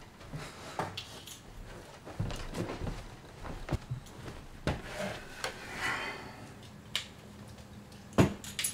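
Scattered knocks, clicks and rustles of objects being handled and moved on a workbench, with a sharper knock near the end.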